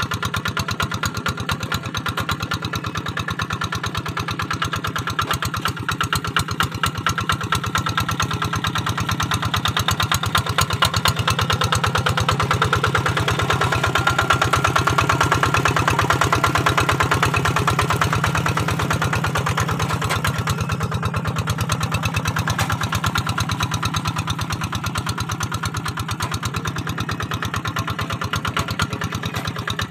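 Kubota RD 85 single-cylinder diesel of a hand tractor running steadily under load while pulling a moldboard plough through dry field soil. It grows louder for a few seconds around the middle as it passes close.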